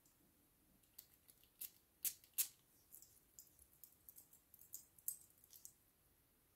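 Quiet handling of a perfume bottle and paper scent blotter: a scatter of faint short clicks and hisses, with the two loudest close together a little over two seconds in.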